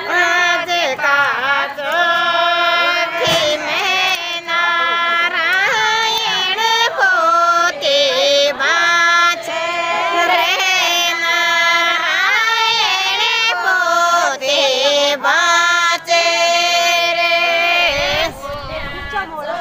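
Women singing a Shekhawati Rajasthani folk song (lokgeet), with long held notes that slide between pitches.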